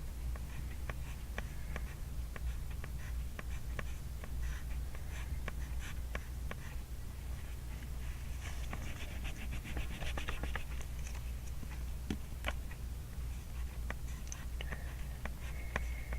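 Pencil writing in a workbook: short scratchy strokes and taps on paper, coming thickest about halfway through, over a steady low hum.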